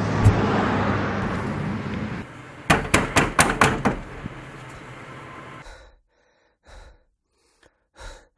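Road traffic passing, with a vehicle engine humming, which cuts off about two seconds in. Then a quick series of about six sharp knocks on a wooden door, followed by near quiet with a couple of faint short sounds.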